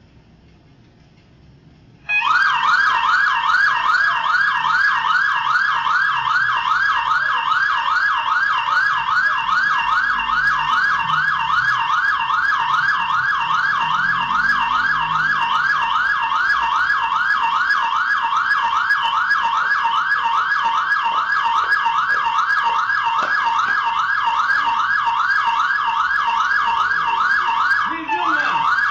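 Electronic siren in a fast yelp, rising pitch sweeps repeating several times a second. It starts suddenly about two seconds in and breaks off briefly near the end before resuming.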